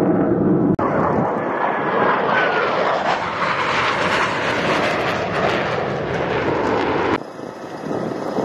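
Jet aircraft engine roar of air-show jets flying past, starting abruptly about a second in with a faint gliding whine in it. Near the end it cuts suddenly to a quieter, wind-blown sound.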